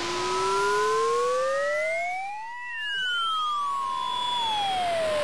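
Synthesized electronic ambient music from an Amiga demo: several pure tones slide slowly up and down in pitch, crossing one another like sirens, over a steady hiss. One tone climbs through the first half and then holds; another falls in the second half.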